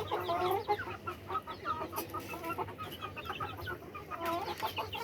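Chickens clucking, mixed with many quick, high chick peeps.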